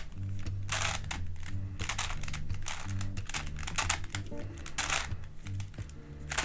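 Plastic MF8 Grilles I puzzle cube being turned by hand, a quick irregular run of clicking and clacking layer turns. Quiet background music plays underneath.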